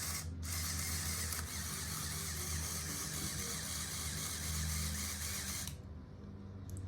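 A small motor running with gear whir, a steady hum under a high whirring hiss. The whir drops out for a moment at the start and cuts off sharply near the end.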